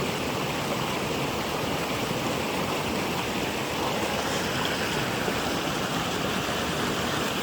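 Steady rush of water from a small waterfall and stream, an even hiss without change.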